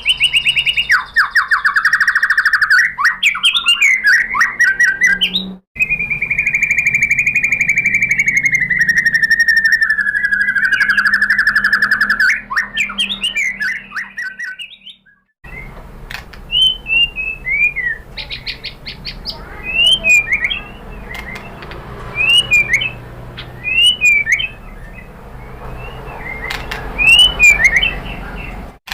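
White-rumped shama singing loudly: quick trilled phrases, then a long, slowly falling whistle. After a short break, a string of sharp, short whistled notes, some doubled, every second or two, the rapid-fire 'tembakan' style of shama song.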